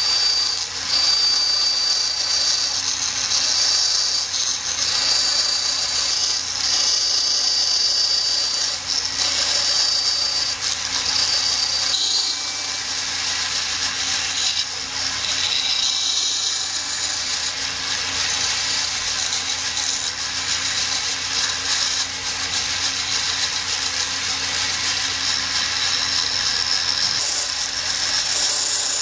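Band saw running and cutting birch plywood: a steady, continuous whirring hiss, with a thin high whine that comes and goes during the first ten seconds or so.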